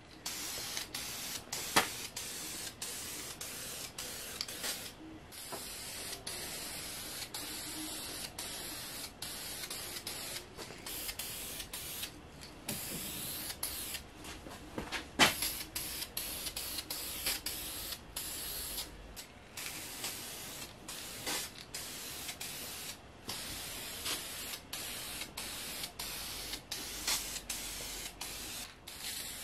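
Aerosol spray can of sandable automotive primer hissing in passes, broken by many brief stops as the nozzle is let go, with a few sharp clicks, the loudest about halfway.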